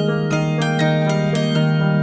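Background music: a quick run of bright notes with sharp starts, about four or five a second, over a held low tone.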